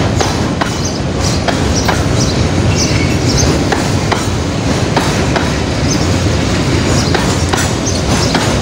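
Container freight wagons rolling past close by: a steady rumble of steel wheels on rail, with clacks about once a second as the wheels cross rail joints and brief high squeals.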